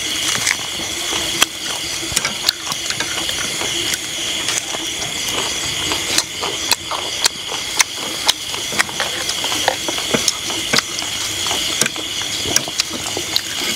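Eating utensils clicking and tapping irregularly against dishes during a meal, over a steady high-pitched hiss.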